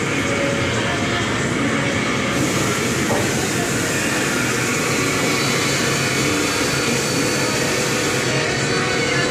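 Loud, steady drone and rumble of running workshop machinery. A brighter hiss joins it about two seconds in and drops away near the end.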